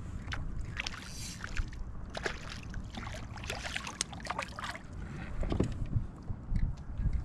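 Small crappie splashing at the surface beside a kayak as it is lifted out on the line, with a quick run of water splashes and drips, then a few low thumps near the end as the fish is handled in the kayak.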